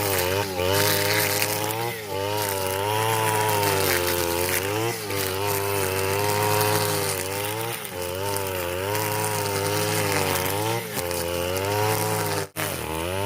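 Petrol brush cutter (grass-cutting machine) running continuously while cutting grass, its engine pitch rising and dipping every second or so as the cutting head meets and clears the grass. It breaks off for an instant near the end.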